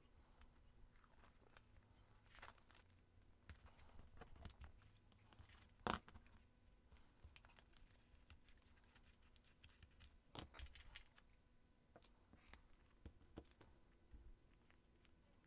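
Faint paper handling: paper rustling and crinkling with scattered soft clicks and snips of small scissors trimming paper, the sharpest single click about six seconds in.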